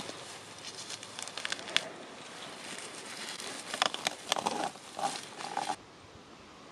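Clumps of moss being pulled and torn off a branch by hand: crackling, rustling and sharp little snaps, which drop away about six seconds in.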